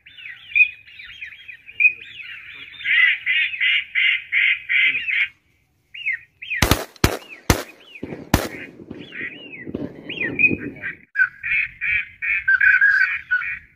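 Rapid, evenly spaced series of duck quacks, then four shotgun shots within about two seconds, the last after a short gap, then more quacking.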